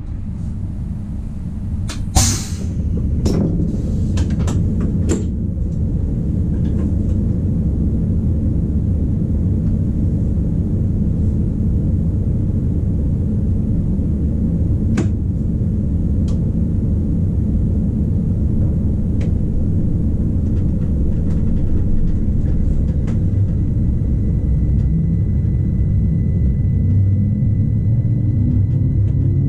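Rhaetian Railway ABe 8/12 electric multiple unit standing with a steady low hum and rumble, with a few sharp clicks and knocks a couple of seconds in. Near the end a rising whine of the traction motors sets in as the train starts moving off.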